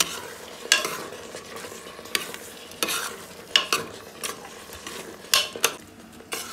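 A spoon stirring thick chicken gravy in a pot, scraping against the pot in short, uneven strokes about once a second.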